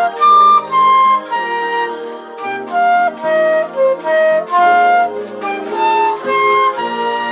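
Instrumental background music: a slow melody of separate held notes over sustained chords.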